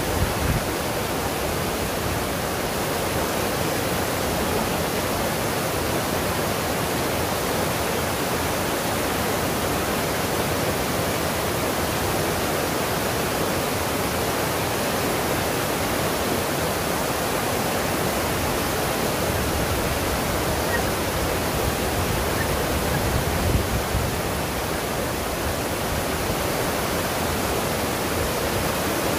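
Steady rush of a waterfall's falling water, with a couple of brief low bumps, one just after the start and one about three-quarters of the way through.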